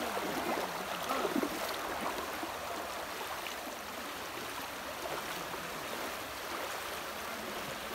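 Floodwater running fast across a submerged road, a steady rushing wash of water around the legs of people wading.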